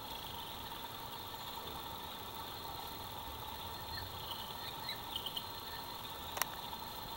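Steady background hiss with a faint even hum. A few brief high chirps come about four to five seconds in, and a single sharp click sounds near the end.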